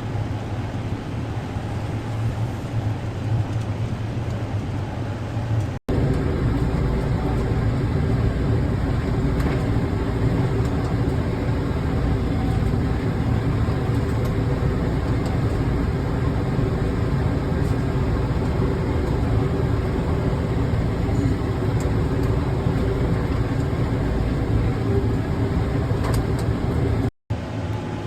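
Tractor engine running steadily while pulling a working Vermeer hay baler. The sound drops out briefly twice, about six seconds in and near the end.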